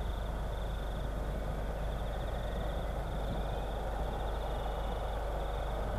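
Distant jet airliner noise across an airfield, most likely an Ansett Boeing 727's three engines: a steady rumble with a faint high whine. A rapid pulsing high buzz runs on underneath.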